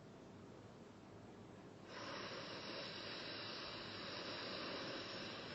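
A long, steady drawn-in breath through the microphone, starting about two seconds in and cutting off sharply near the end: the reciter filling his lungs for the next long verse.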